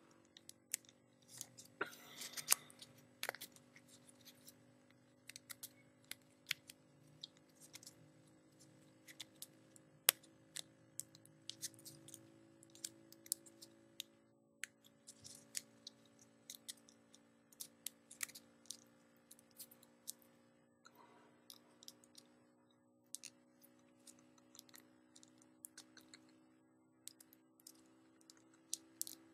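Small sheet of paper being folded and creased by hand into a tiny origami boat: irregular crisp clicks and crinkles, several a second, over a steady low hum.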